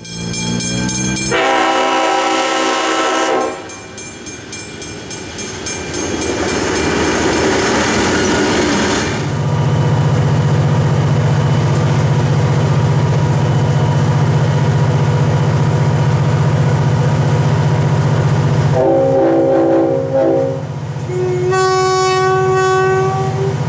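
Diesel locomotive horn blowing a chord for about three seconds, then train noise and a steady low engine drone for about ten seconds, then two more horn blasts near the end.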